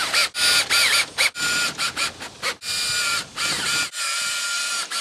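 Cordless drill/driver driving screws into a storm door's aluminium hinge track. The motor whines in a quick series of short trigger pulls, its pitch rising as each one spins up, then settles into two longer steady runs in the second half.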